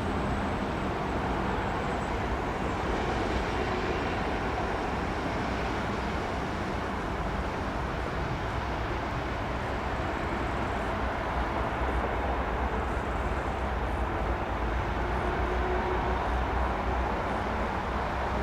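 Boeing 757-200F cargo jet's engines during its landing: a steady rush of jet noise with a deep rumble underneath, holding an even level.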